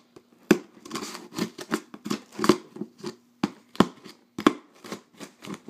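Earbud headphone plug jabbing and scraping at the packing tape on a cardboard box to cut it open: a quick, uneven series of sharp scrapes and taps, about two or three a second.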